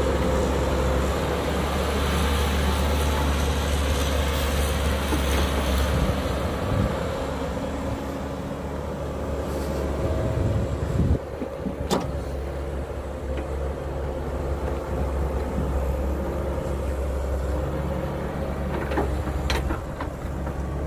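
Caterpillar 312B excavator's diesel engine running steadily under load as the machine digs and loads soil, with a sharp knock about halfway through.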